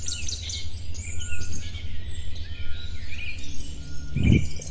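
Small birds chirping and calling over a steady low rumble, with a brief lower sound near the end.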